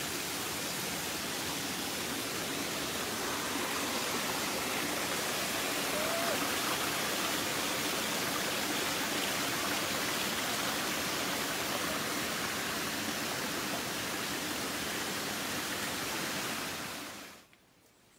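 Steady rushing of a rainforest waterfall, a loud even roar of falling water that cuts off abruptly near the end.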